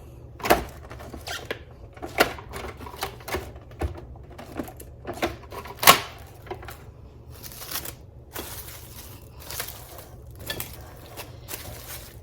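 Plastic cling wrap being pulled off the roll, torn and pressed over a bowl: crinkling with scattered sharp clicks and knocks, the loudest about six seconds in.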